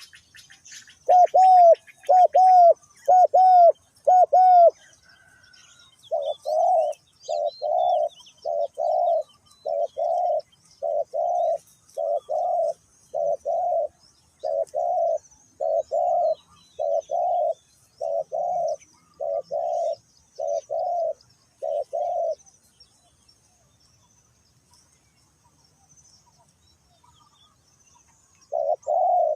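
Spotted dove cooing: a long run of repeated low coos in short paired phrases, stopping for several seconds and starting again near the end. Small birds chirp faintly in the background.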